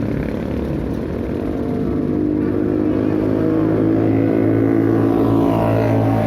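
Excavator's diesel engine running under load, growing louder from about two seconds in.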